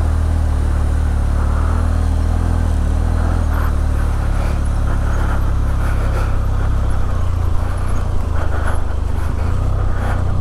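Benelli TRK 502X parallel-twin engine running steadily as the motorcycle is ridden. The bike is not picking up, which the rider puts down to overheated clutch plates.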